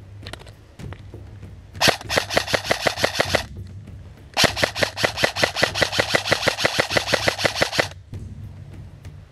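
Airsoft rifle firing on full auto: two bursts of rapid, evenly spaced shots, a short one about two seconds in and a longer one of about three and a half seconds starting about halfway through.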